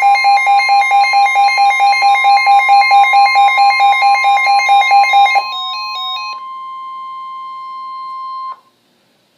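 NOAA Weather Radio's steady 1050 Hz warning alarm tone, signalling an incoming warning broadcast. For about the first five seconds an electronic alert beeps over it, a fast repeating pattern of stepped tones several times a second. The steady tone then sounds alone until it cuts off sharply near the end, leaving near silence.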